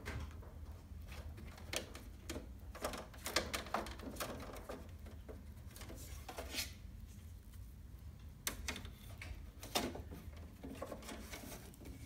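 Plastic clicks, knocks and scraping as the blue mesh air filters are worked loose and slid out of a Panasonic split air conditioner's indoor unit, in scattered bursts with a busier cluster about three seconds in and a sharp knock near ten seconds, over a low steady hum.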